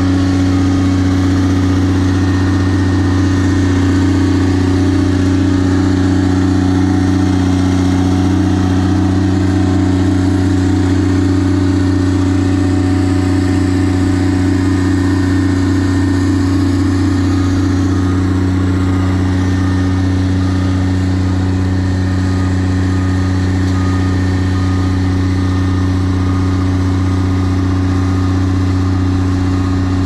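Tracked asphalt paver's diesel engine running at a steady speed as the machine creeps onto a lowboy trailer: a loud, even, low hum that hardly changes.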